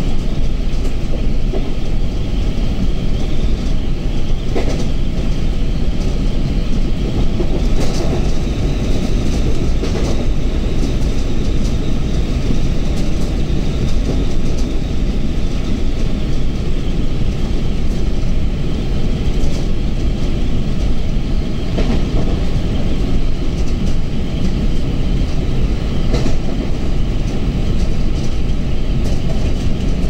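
Indian Railways train running along the track, a steady loud rumble and rattle with scattered sharp clicks from the wheels on the rails.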